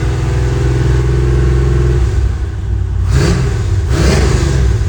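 Chevrolet C10 pickup engine on a Holley Sniper EFI running steadily with its distributor timing just reset, then blipped twice, briefly, about three and four seconds in.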